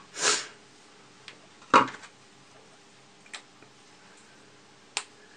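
Small plastic model parts and a hobby knife handled at close range: a few sharp clicks and light ticks, two of them louder, about two seconds in and near the end. A short rush of noise comes just after the start.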